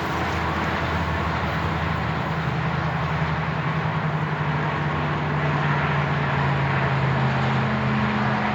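A motor vehicle's engine running steadily under a continuous rushing noise, its low hum stepping up slightly in pitch near the end.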